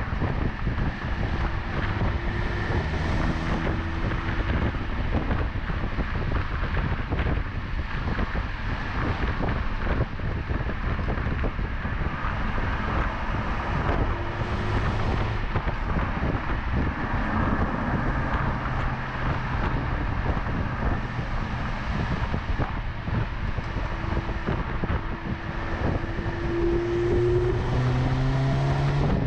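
BMW 330e Touring driving on the open road: steady road and wind noise, with the hum of its 2.0-litre turbocharged four-cylinder petrol engine coming and going underneath. Near the end the engine note rises in pitch as the car accelerates.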